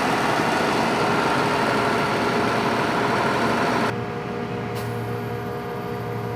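Combine harvester running in the field with a loud, steady mechanical noise. About four seconds in it changes abruptly to a quieter, steadier hum.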